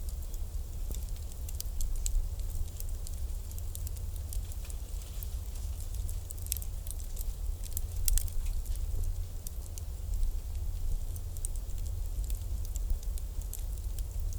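Wood fire crackling, with irregular sharp pops and snaps scattered throughout over a steady low rumble.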